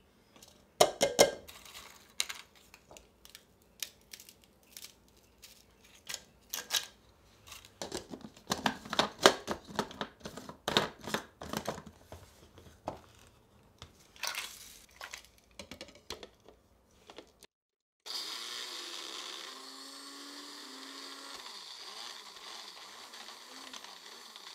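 Dry crumbs and chunks of graham cracker clattering and rattling into a plastic blender cup, with clicks of the blade base being screwed on. Then a bullet-style personal blender's motor runs steadily for several seconds, a whirring hum with a high whine, without breaking down the cracker pieces packed above the blades.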